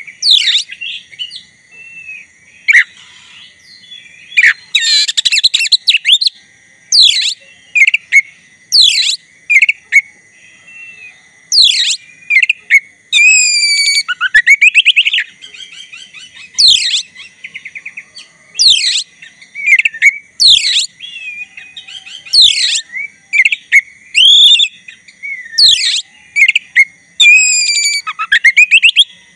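Black-breasted oriental magpie-robin singing in full, in-form (gacor) song: loud, clear whistles that sweep down in pitch, repeated every second or two, mixed with chattering and rattling phrases. A faint steady high hum runs underneath.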